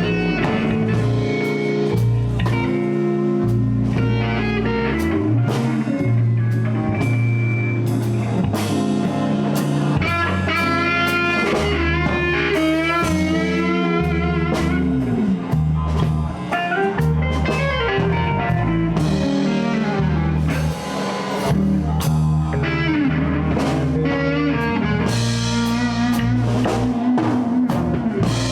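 Live blues band playing an instrumental passage: guitar, bass and drum kit, with a lead line bending in pitch through the middle.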